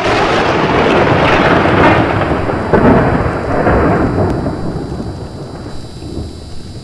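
Thunder sound effect: a sudden crack, then rolling rumbles that slowly fade.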